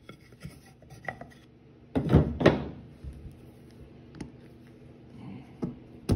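Sharp metal knocks and clicks from working on a small revolver's frame to free its trigger guard: a quick cluster of three loud knocks about two seconds in, then a few lighter clicks as pliers grip and work the trigger guard loose.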